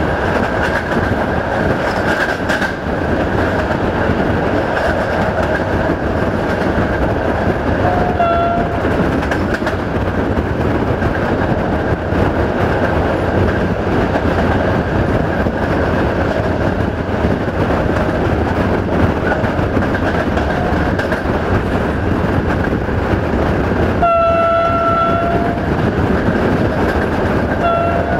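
Diesel-hauled passenger train running at speed, its wheels and engine making a steady rumble. The locomotive's horn sounds three times: a short blast about eight seconds in, a longer blast of over a second near the end, and another short blast just before the end.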